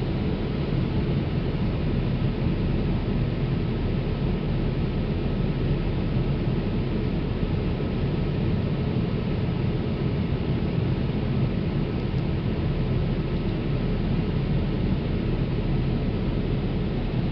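Boeing 787 Dreamliner cabin noise in cruise flight: the steady, deep rush of engines and airflow heard inside the passenger cabin, even throughout.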